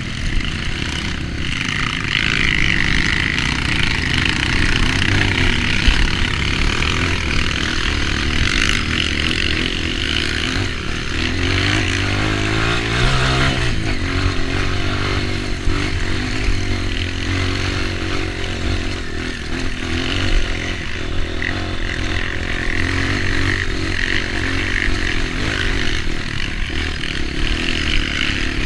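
Dirt bike engine running as it is ridden along a trail, its revs rising and falling with the throttle, with one clear rev up and back down about halfway through.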